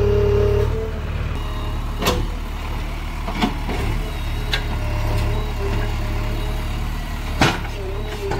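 JCB 3DX backhoe loader's diesel engine running steadily with a low rumble and a wavering whine over it, broken by four sharp knocks, the loudest near the end.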